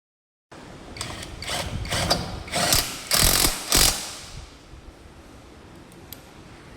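Metal garage door hardware rattling and clattering in a quick run of bursts for about three seconds, loudest near the middle, then dying away to a faint steady background.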